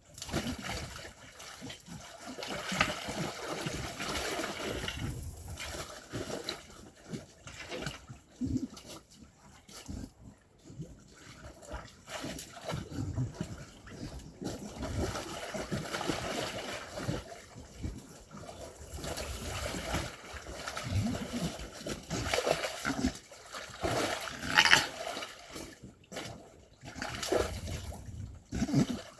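Water splashing and trickling irregularly, with animal noises among it and a few sharper splashes or knocks, the loudest about three-quarters of the way through.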